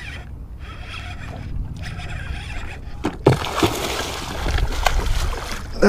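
A large bowfin striking a topwater frog lure: a sudden splash at the surface about three seconds in, followed by a couple of seconds of splashing water.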